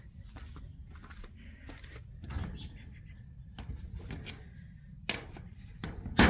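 Crickets chirping steadily at about four chirps a second, with scattered light clicks of plastic pieces being handled. Near the end comes a single sharp, loud clack as a magnetic plastic garage door accent snaps onto the steel door.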